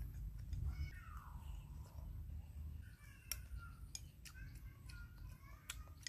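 Eating sounds: a metal spoon clicking a few times against a porridge bowl, under several short animal calls, one about a second in falling in pitch and a cluster of shorter ones later.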